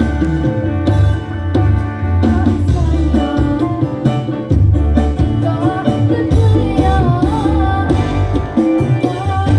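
Background music with drums and a strong bass line, and a wavering melody that comes in about halfway.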